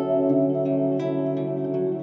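Calm instrumental background music: sustained pitched notes, with a new note struck about once a second.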